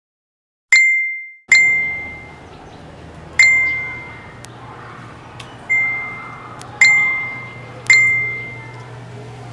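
Six electronic notification pings at uneven intervals, each one clear high tone that starts sharply and fades away, as messages arrive on a laptop. A faint low hum sits underneath from about a second and a half in.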